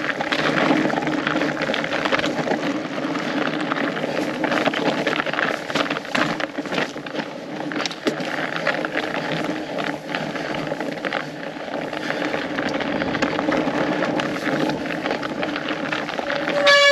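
Fat bike on studded tyres riding down a frozen trail: steady tyre and trail noise with frequent knocks and rattles from the bike. Near the end the brakes give one short, loud, high-pitched squeal.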